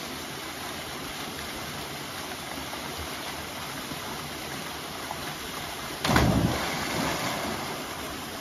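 Steady rush of a small waterfall and stream pouring into a pool. About six seconds in there is a sudden loud thump, and the rushing is louder for a second or two after it.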